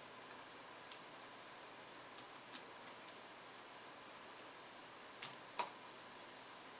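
A handful of light, sharp clicks from computer keys and a pen stylus tapping a tablet display as keyboard shortcuts are entered, a few in quick succession about two seconds in and the loudest near the end, over faint room hiss.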